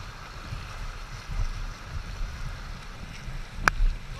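Whitewater of a river rapid rushing steadily, with gusts of wind rumbling on the microphone. A single sharp click sounds near the end.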